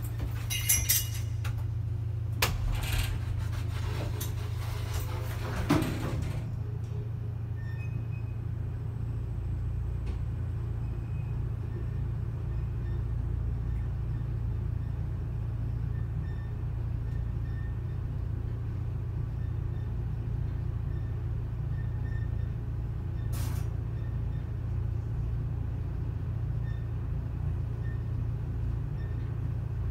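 Lift car travelling: a steady low hum and rumble from the running lift, with a few knocks and rattles in the first six seconds and a single sharp click about 23 seconds in.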